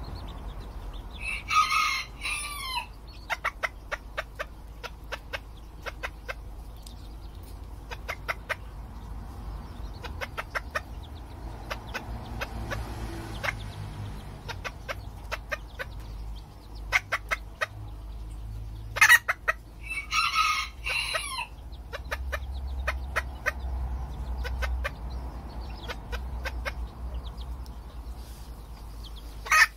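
Serama bantam chickens: a high-pitched crow rings out twice, near the start and again about two-thirds of the way through, with short clucks scattered between.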